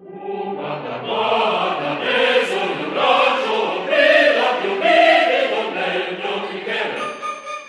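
Background music: a choir singing, many voices together, swelling up in the first second.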